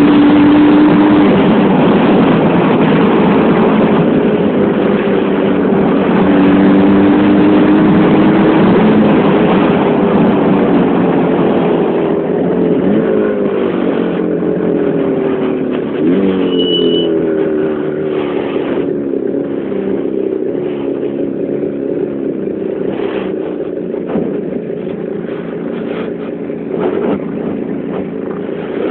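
Jawa 350 type 639 two-stroke twin engine running under way as the motorcycle is ridden, its pitch rising and falling with the throttle, with a sudden jump about halfway through. Wind rushes over the microphone, heavier at first and easing about two-thirds of the way through.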